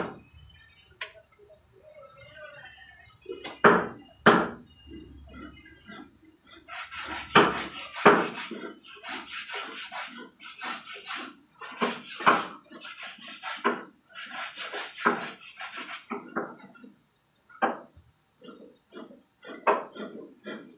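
Wood being worked by hand: a sharp knock at the start, then a run of noisy rubbing strokes about once a second through the middle, with scattered knocks near the end.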